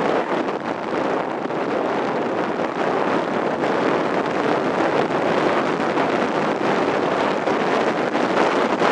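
Steady wind rushing over the microphone of a camera mounted on a moving motorcycle's handlebars, with the Buell XB9SX's engine mostly buried beneath it.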